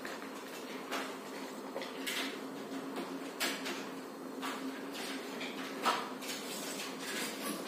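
Sheets of paper rustling and crinkling as they are folded and peeled off a painted mandala, with small irregular taps and knocks of things set down on a hard table, over a steady low hum.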